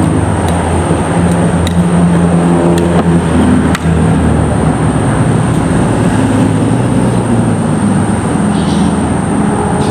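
A loud, steady motor-vehicle engine rumble with a low hum that shifts in pitch, over which a metal spoon clicks a few times against a plate.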